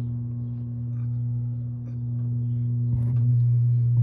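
Well pump's electric motor running with a steady low hum, a little louder from about halfway through, as it refills the pressure tank after power is switched back on.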